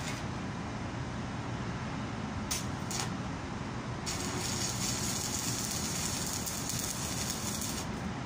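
Stick-welding arc on cast iron with a 2.6 mm cast iron electrode: two short strikes about two and a half and three seconds in, then the arc holds with a steady sizzling crackle for about four seconds and cuts off near the end. A steady low rumble runs underneath.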